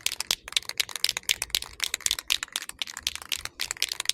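Aerosol spray-paint can being shaken, its mixing ball rattling in quick, irregular clacks, several a second, as the paint is mixed before spraying.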